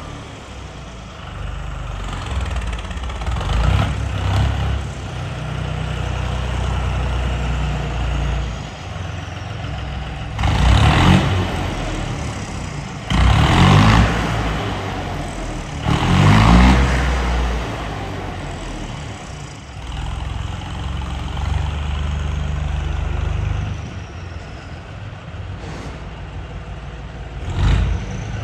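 Indo Farm tractor's diesel engine running with a steady low rumble, revved in short bursts about four times.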